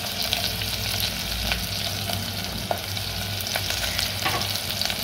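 Freshly chopped onion and garlic sizzling in hot oil in an aluminium pot: a steady frying hiss with scattered crackles, the onions just starting their fry toward golden brown. A low steady hum runs underneath.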